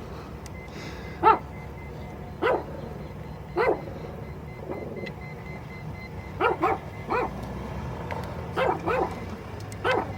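A dog barking repeatedly: about nine short barks, some single and some in quick pairs, spaced irregularly over a steady low background hum.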